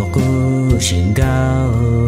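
A man singing a Hmong pop song over a steady instrumental backing.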